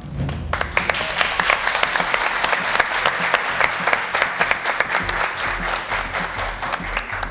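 A group of people applauding, a steady patter of clapping that starts about half a second in and dies away near the end.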